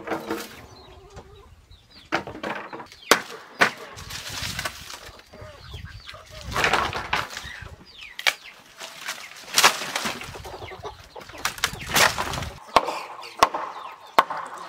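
Bamboo poles knocking and clattering against each other and dry palm-leaf thatch rustling as a collapsed chicken coop is pulled apart, in a string of sharp knocks and several longer rustling swells. Chickens cluck in the background.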